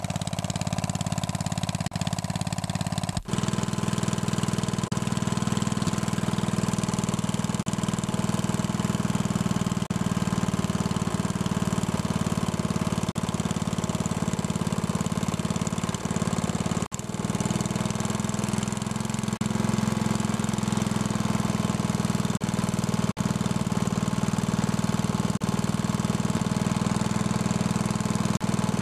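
Tecumseh 8 hp single-cylinder four-stroke engine running steadily, just after reassembly and startup, with two brief breaks in the sound.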